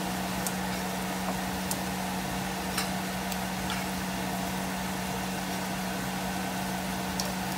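Food sizzling in a frying pan over a steady low hum, with a few scattered small pops.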